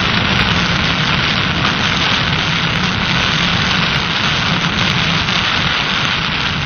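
Loud, steady wind noise buffeting the microphone of a motorcycle being ridden at speed, with a low rumble underneath.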